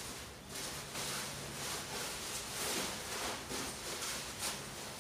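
Nylon fabric of a pop-up privacy tent rustling and swishing in irregular swells as it is twisted and folded down over its spring frame by hand.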